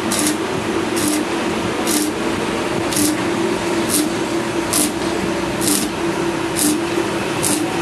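Stick (shielded metal arc) welding on steel bars: the electrode arc crackling and sizzling steadily, with a hum underneath and a short hiss that recurs about once a second.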